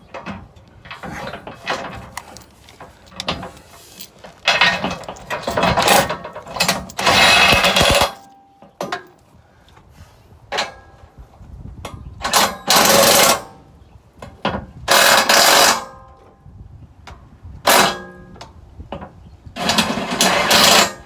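Power drill boring out a bolt hole in a steel skid plate, run in about six bursts of one to two seconds with short pauses between. The hole is being enlarged because the plate is warped and the hole no longer lines up.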